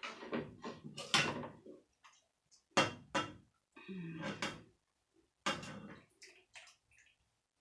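Metal ladle knocking and scraping against a frying pan as chicken curry is scooped and poured into a bowl of noodles: a few sharp clinks with short scrapes between.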